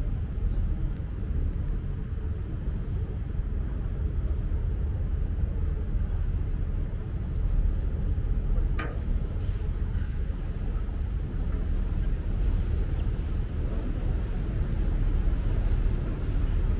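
Steady low rumble aboard a Seine river tour boat under way: its engine and the water beneath it.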